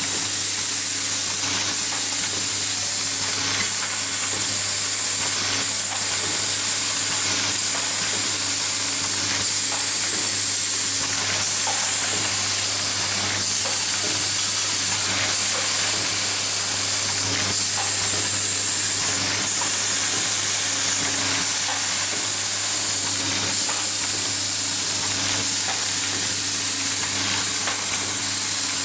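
Automated screw-driving assembly machine with a vibratory screw-feeder bowl, running. There is a steady hiss over a low hum, with faint scattered clicks.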